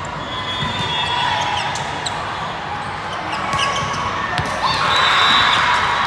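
Indoor volleyball match in a large echoing hall: a steady hubbub of players' and spectators' voices with a few sharp ball hits. The crowd noise swells louder from about five seconds in.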